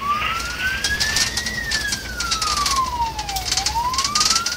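Fire engine siren wailing, heard from inside the cab of a Scania CAS 20 fire tender: the pitch climbs slowly, falls over about two seconds and starts climbing again. The truck's engine and road noise run underneath.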